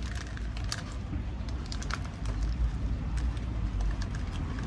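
Steady low street-traffic rumble with many small, irregular clicks and crackles from eating a paper-wrapped burrito: paper crinkling and chewing close to the microphone.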